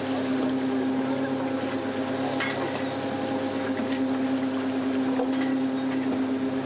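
Steady, even drone of a sardine purse seiner's machinery at work while the seine net is hauled, with a few sharp clicks about two and a half, four and five seconds in.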